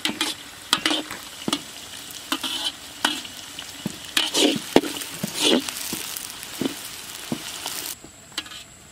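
Sliced onions and curry leaves sizzling in hot oil in a large iron kadai, with a long perforated metal ladle scraping and stirring against the pan in irregular strokes. The sizzle drops away near the end.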